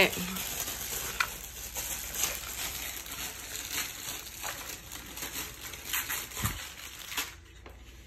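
Plastic packaging rustling and crinkling as small toys are unwrapped and handled, a dense crackle of small clicks that stops about seven seconds in.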